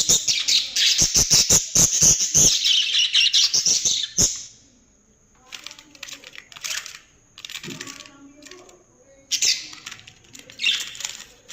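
Budgerigars chattering and chirping. A loud, dense stretch of chatter lasts about four seconds, with a run of sharp clicks in it. Shorter bursts of chirping with pauses between them follow.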